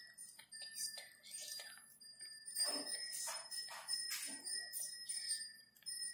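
Craft paper rustling and crinkling in short, scratchy strokes as fringed paper is handled and rolled between the fingers, over a faint steady high-pitched whine.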